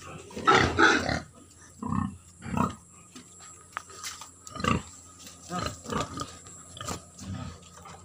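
White domestic pigs calling: one long, loud call about half a second in, then a string of shorter grunting calls spaced through the rest.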